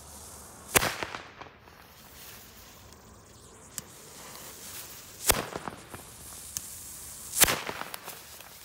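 Small Pyro-Cracker firecrackers (0.6 g each) going off one by one on asphalt: three sharp bangs, about a second in, around five seconds and about seven seconds in, with a few weaker cracks between. The tester counts many fizzlers (Verpuffer) among them.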